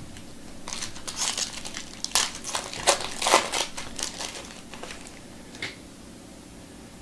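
Foil wrapper of a Topps Chrome baseball card pack crinkling and tearing as it is opened by hand and pulled off the stack of cards. A run of sharp crinkles lasts about five seconds and is loudest near the middle.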